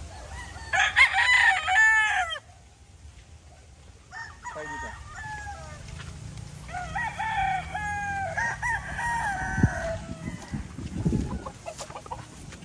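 Gamefowl roosters crowing: a loud crow about a second in, a shorter crow around four seconds in, then a longer crow from about seven to ten seconds.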